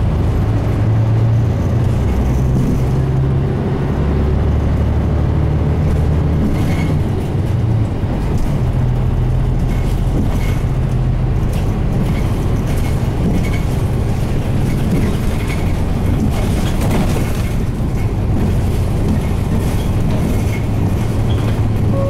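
Cabin running sound of a 2002 Mitsubishi Fuso Aerostar (KL-MP37JK) city bus: its 6M70 turbocharged inline-six diesel drones low and steady as the bus drives along, the engine note stepping in pitch a few times in the first several seconds as the driver works the five-speed manual gearbox. Faint regular ticks sound in the second half.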